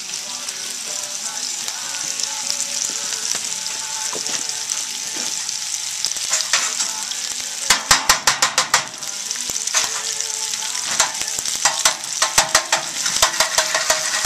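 Lard sizzling as it melts in a metal baking pan on a hot woodstove. A metal spoon scrapes and taps the pan bottom as it spreads the fat, in a quick run of strokes about eight seconds in and again near the end.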